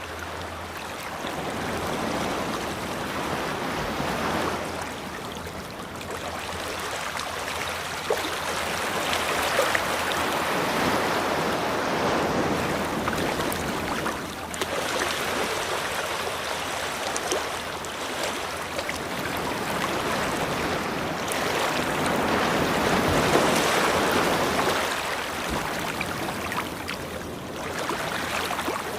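Ocean waves washing onto a shore: a steady rush of surf that swells and falls back every few seconds.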